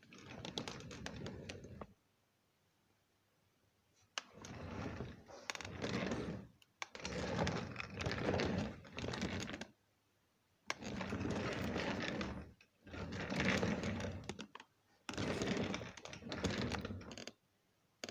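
Office chair casters rolling over a parquet floor, in six runs of about two to three seconds each with short pauses between them.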